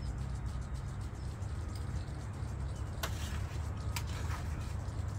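Outdoor ambience with a steady low rumble, and a couple of sharp clicks about three and four seconds in as small items are handled on a camp table.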